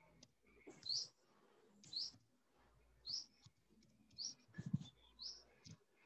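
A bird chirping over and over, one short high chirp about every second, with a few keyboard clicks and a soft thump about three-quarters of the way through.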